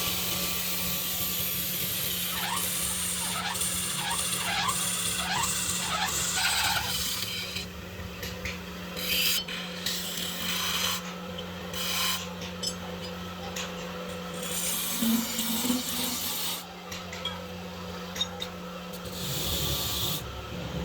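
Wood being worked by hand with rasping strokes, about two a second at first, then irregular scraping and rubbing, over a steady low hum.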